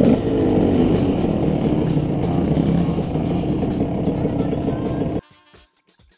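Single-cylinder two-stroke engine of a KTM 150 SX dirt bike running at low speed. The sound cuts off abruptly about five seconds in, leaving faint plucked guitar music.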